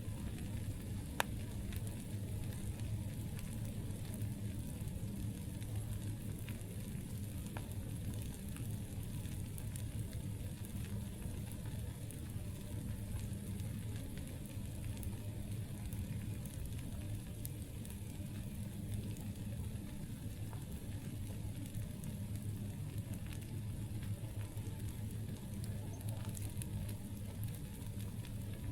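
Campfire burning: a steady low rumble and hiss with scattered small crackles, and one sharp pop about a second in.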